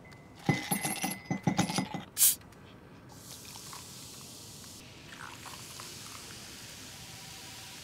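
Ceramic mugs clinking against each other and knocking on a wooden tabletop several times, with short ringing, then dark soda poured from a plastic bottle into a mug, a steady fizzing hiss.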